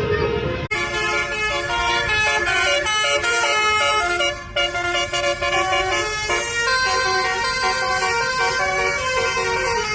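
Bus 'telolet basuri' multi-trumpet air horns playing a slow melody of held, stepping notes. They come in abruptly about a second in and break off briefly near the middle before playing on.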